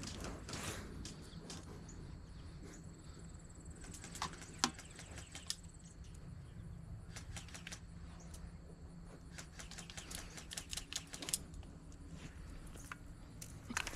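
Faint rustling and scattered light clicks, in two clusters about four seconds in and again around ten seconds, over a steady low hum.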